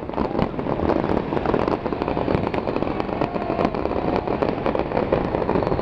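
Fireworks crackling: a dense, unbroken run of many small overlapping pops and cracks over a low rumble.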